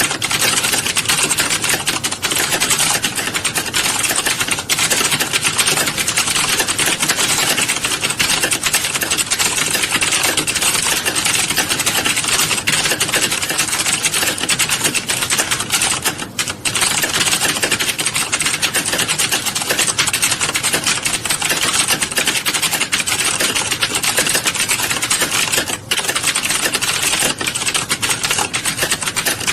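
Fast, continuous typing on a keyboard: a dense stream of key clicks with two brief pauses, about halfway through and again near the end.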